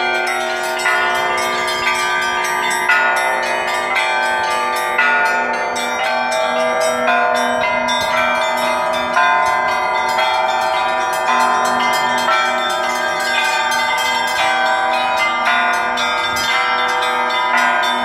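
Russian-style bell ringing (zvon) on a frame of bronze bells whose clappers are pulled by ropes: smaller bells struck in quick, overlapping patterns several times a second over the steady ring of a low bell.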